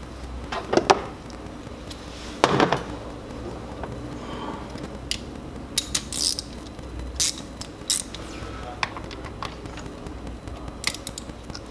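Irregular clicks and clinks of metal hand tools and engine parts being handled during spark plug work, with two louder knocks in the first few seconds.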